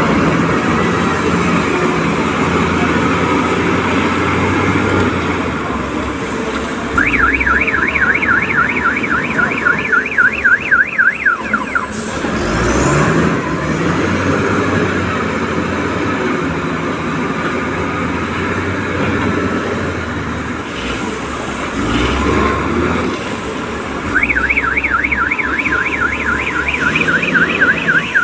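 Heavy-equipment diesel engines running steadily, with a warbling reversing alarm sounding twice. Each bout lasts about four to five seconds, the tone sweeping up and down about four times a second.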